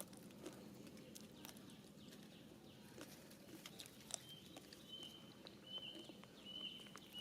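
Faint scattered taps and clicks, and from about halfway a thin high-pitched animal call repeated in short pieces at a steady pitch.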